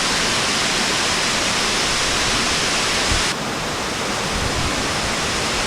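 Waterfall rushing: a steady, loud hiss of falling water that turns a little quieter and duller about three seconds in.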